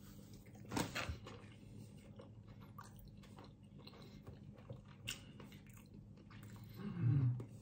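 A person biting into and chewing a slice of pizza, with a sharper bite sound about a second in and a short hum near the end.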